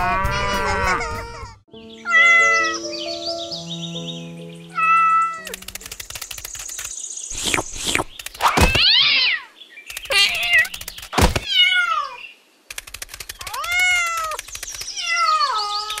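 Cat meows added as sound effects: several drawn-out calls rising and falling in pitch in the second half, over light music with a plinking stepped melody and a few clicks.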